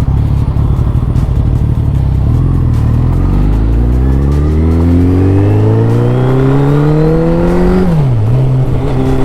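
Suzuki Hayabusa's inline-four engine under acceleration, its note climbing steadily for about five seconds. The note then drops sharply about eight seconds in and settles at a steady pitch.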